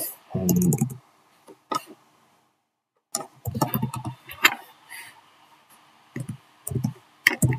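Computer keyboard keys clicking in short irregular bursts as text is typed, each keystroke a sharp click with a dull thud under it.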